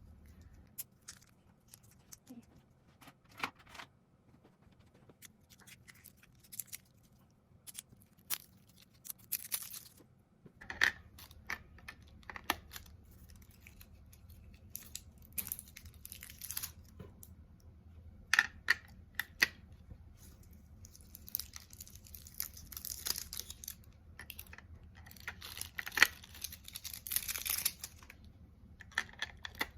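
Hands handling packaging and small plastic parts: scattered clicks and taps, then crinkling and tearing of plastic wrapping that is busiest near the end, with batteries being fitted into a blood pressure monitor.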